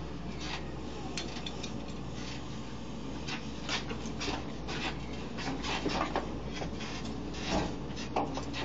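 Doosan DX140W wheel excavator running with a steady low hum while it slews, under irregular scraping and creaking knocks that come more often in the second half.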